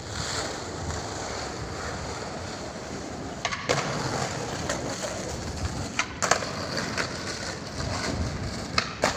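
Skateboard wheels rolling steadily over paving, with a handful of sharp clacks from the board a few seconds apart.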